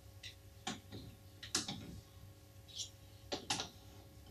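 Chess pieces being set on and lifted off a wall demonstration chessboard: several light knocks and clicks, the sharpest about halfway through and near the end, with faint rustling between them.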